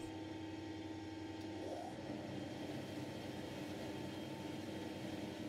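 ITECH 260S spiral-cutter planer thicknesser and a dust extractor running together, idling without cutting: a steady machine hum with a few constant tones through it.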